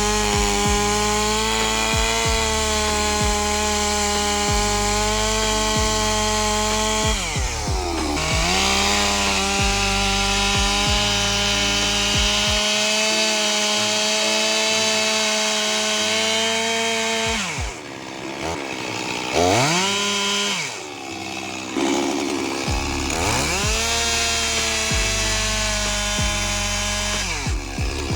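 Chainsaw running at high revs cutting into wood, its pitch dipping and recovering about a third of the way in and several more times near the end. Background music with a deep bass line plays underneath.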